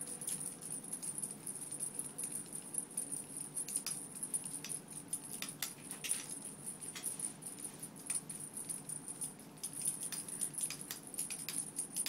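Small bell in a hanging ball cat toy jingling continuously as the toy swings on its string, with many quick sharp clinks.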